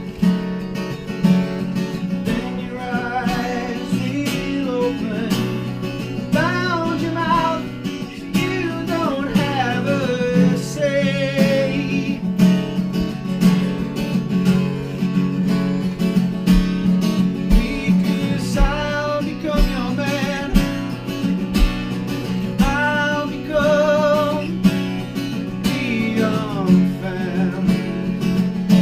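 Live acoustic Americana music: an acoustic guitar strummed steadily, with a wavering melody line over it.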